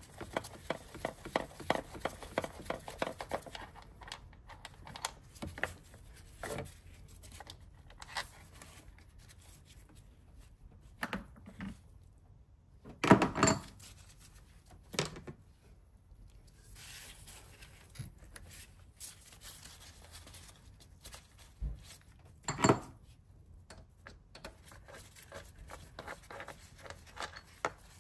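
Hand tools working on a car engine: fast runs of small clicks at the start and again near the end, scattered clinks in between, and two louder knocks, one about halfway through and one about three-quarters through.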